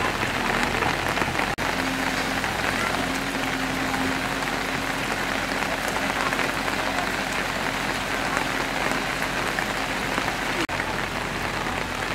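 Steady heavy rain pattering on leaves and ground, with the low steady hum of a JCB backhoe loader's engine underneath.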